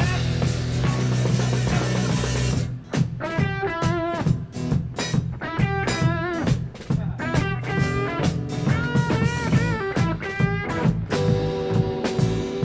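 Rock-and-roll band playing: electric guitar over a drum kit. About three seconds in the playing thins out into separate guitar phrases with bent notes, punctuated by drum hits.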